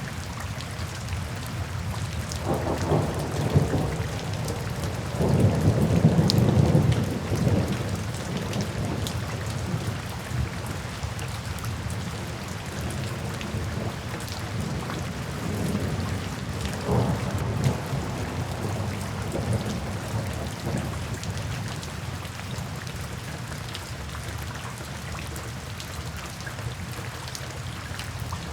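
Steady rain with rolling thunder: low rumbles swell up a few seconds in, again more loudly soon after, and once more past the middle.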